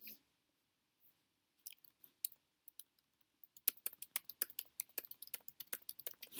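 Typing on a laptop keyboard: a few scattered key clicks, then a quick run of clicks at about ten a second from about three and a half seconds in.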